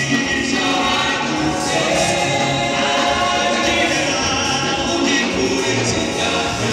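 Gospel choir singing in full voice with a male lead singer on a microphone, over a steady low accompaniment.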